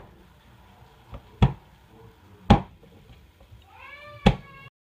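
Three sharp thumps as a palm strikes the flat of a chef's knife, smashing garlic cloves on a plastic cutting board. A short high-pitched call comes just before the last thump, and the sound cuts off suddenly near the end.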